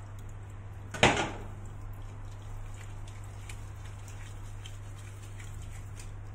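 A single sharp clack about a second in, as a kitchen knife is set down on a plastic cutting board, followed by faint light ticks and rustling from gloved hands over a low steady hum.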